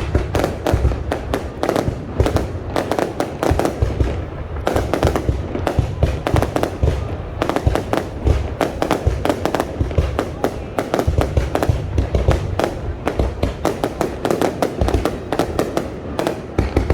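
Fireworks display: a dense, unbroken barrage of sharp bangs and crackling bursts, many each second, with deep booms underneath.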